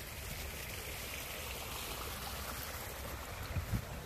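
Wind rumbling on the microphone over a steady rushing hiss, with two soft thumps near the end.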